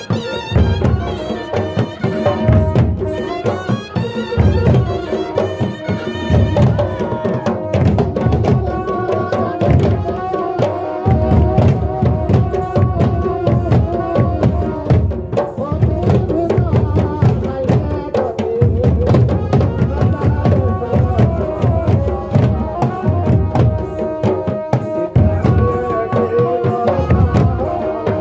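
Jhumar folk music: double-headed hand drums beaten in a steady, driving rhythm under a sustained melody line.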